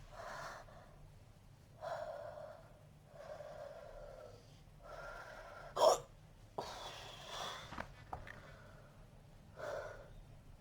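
A person hiccuping over and over, about seven short sounds with breaths in between; the sharpest and loudest hiccup comes about six seconds in, followed by a longer breath.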